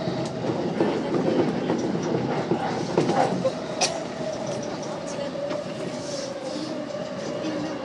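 E233-series electric train running on the rails, heard from inside the front car, with wheel-on-rail rumble and a motor whine that slowly falls in pitch as it slows into a station. A single sharp click a little under four seconds in.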